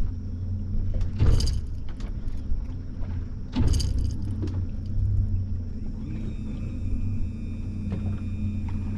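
Boat motor running with a steady low rumble, two short whooshing noises about one and four seconds in, and a thin high whine joining about six seconds in.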